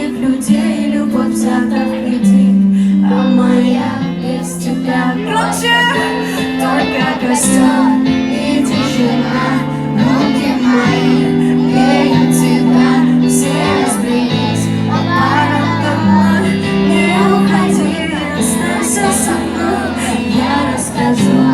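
Russian pop song played live over a concert sound system: a singer's voice over sustained synth chords and bass notes.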